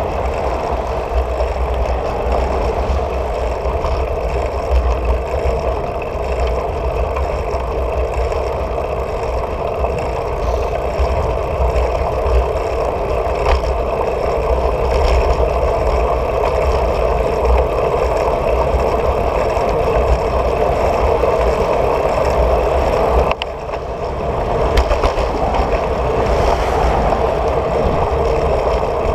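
Steady rushing noise of a moving bicycle: wind on a handlebar-mounted camera's microphone and tyres on asphalt, with cars going by. The noise dips briefly about 23 seconds in.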